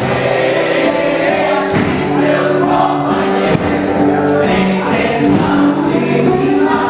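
Cacuriá music: a group of voices singing a held, steady melody together over regular hand-drum beats.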